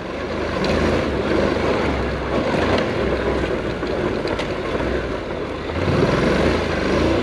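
Honda NC700X motorcycle riding on a dirt trail: its engine running steadily under heavy wind rush on the microphone.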